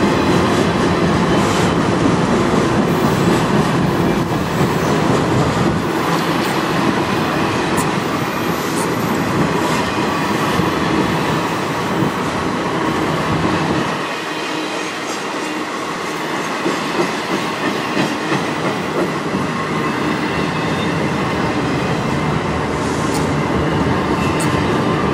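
Freight train's autorack cars rolling past close by: a steady rumble and rattle of steel wheels on the rails, with occasional sharp clacks. The deep rumble thins about halfway through.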